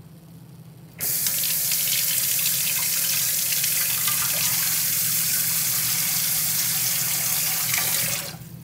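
Loud, steady rushing noise that starts suddenly about a second in and fades out near the end.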